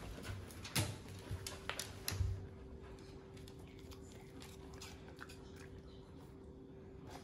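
Faint clicks and taps from a chow chow puppy taking a treat from a hand, with a few louder taps in the first two seconds, over a faint steady hum.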